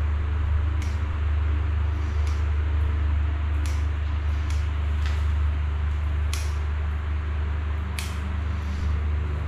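Caulking gun's trigger clicking about every second and a half as silicone is squeezed out along a joint, over a steady low hum.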